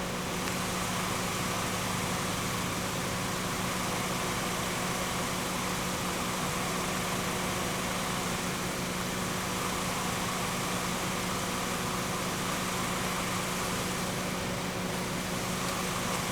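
A steady mechanical hum with a few held tones over an even hiss, unchanging throughout.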